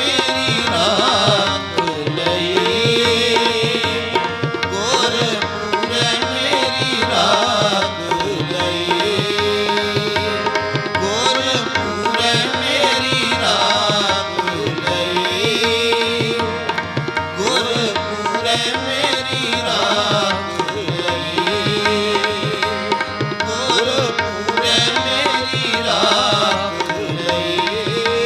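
Gurbani kirtan: harmoniums sounding steady held chords and melody over two pairs of tabla keeping up a fast, even drum rhythm, continuous with no pause.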